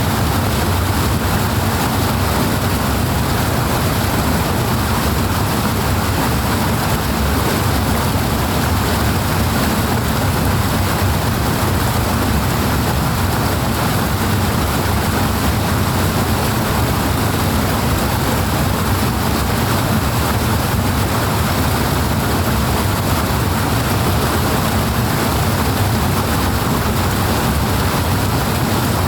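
Rushing water flowing strongly and steadily, a continuous noise heaviest in the low range, with no changes.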